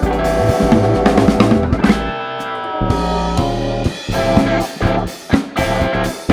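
A jazz-funk band playing an instrumental passage, with guitar over a drum kit. About two seconds in, the bass and drums drop out briefly, leaving held chords that slide downward, then the full band comes back in.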